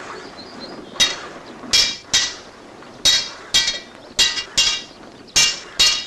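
Hammer striking a sword blade on an anvil: nine sharp metallic blows, each ringing briefly, falling roughly in pairs.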